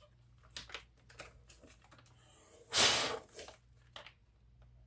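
Packing material being handled during unboxing: small rustles and clicks, with one loud rip and crinkle about three seconds in.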